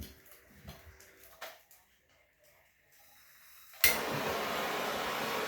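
Faint handling knocks, then a sharp click a little under four seconds in as a plumber's soldering torch is lit, followed by the steady hiss of its flame.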